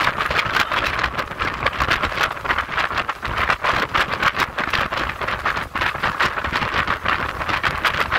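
Steady rushing of wind and water on the open deck of a moving harbour ferry, with irregular gusts buffeting the microphone.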